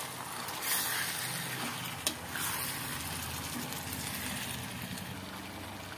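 Raw chicken pieces sizzling in a hot pan of fried onion-tomato masala while a spatula stirs them, with a sharp knock of the spatula against the pan about two seconds in.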